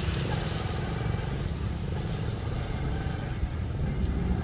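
A vehicle's deep, steady engine-and-exhaust rumble.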